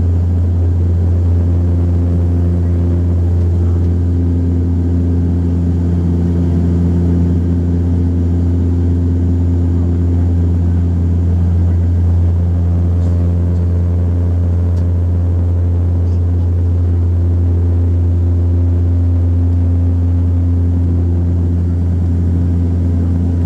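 Steady drone of an Embraer 120 Brasilia's twin Pratt & Whitney PW118 turboprops and propellers, heard inside the passenger cabin: a deep, even propeller hum with steady humming tones above it, holding constant power.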